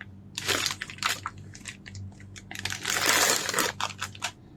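Handling noises from unboxing a bullet camera: scattered light clicks and rustles, with a louder crinkle of packaging about three seconds in.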